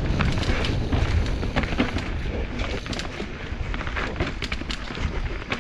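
Specialized Enduro full-suspension mountain bike descending a rocky dirt trail at speed: steady wind rumble on the microphone, tyre noise on dirt and stone, and a rapid irregular patter of clicks and rattles from the bike over rocks and roots.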